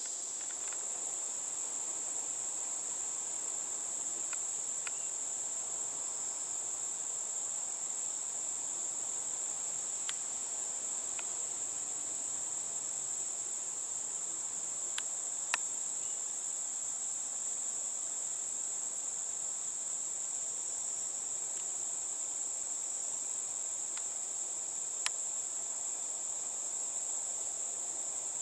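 A chorus of crickets and other insects, singing as one steady, unbroken high-pitched trill. A few sharp clicks stand out, the loudest about halfway through and another near the end.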